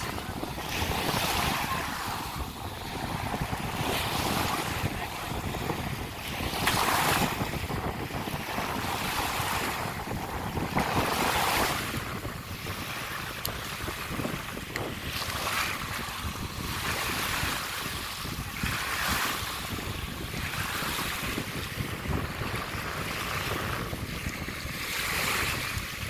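Small sea waves washing in over a sandy shore in shallow water, the wash swelling and ebbing every few seconds. Wind rumbles on the microphone underneath.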